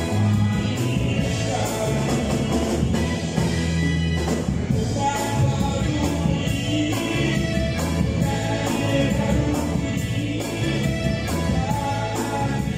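Live band playing a song with a singer: electric guitar, electronic keyboard and drum kit over a steady beat, the sound carrying through an amplified PA in a large hall.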